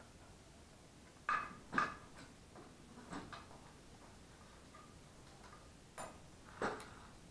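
Small engine parts being handled on a metal workbench during a teardown: a handful of sharp metal clinks and knocks in pairs, the loudest two about a second and a half in, two lighter ones a little later and two more near the end.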